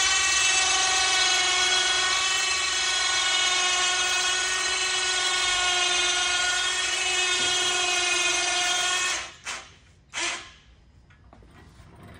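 Badlands electric winch on an engine hoist winding in its cable to lift a transfer case: a steady motor-and-gear whine that runs for about nine seconds under load, then stops, followed by two short jogs of the winch.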